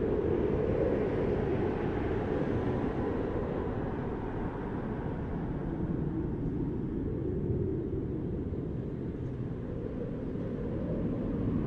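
FPV racing drone in flight: a steady, low rushing of air and propeller noise that does not change much as it dives and banks.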